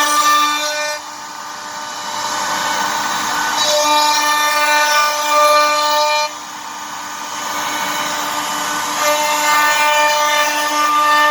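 CNC wood router spindle running with a steady whine, growing louder and harsher in three stretches of a few seconds each as the bit cuts into wood, and easing off in between.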